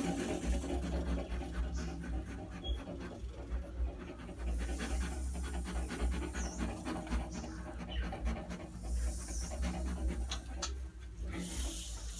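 Porcupines feeding: a steady stream of small crunching clicks as they chew, broken by a few short breathy hissing bursts.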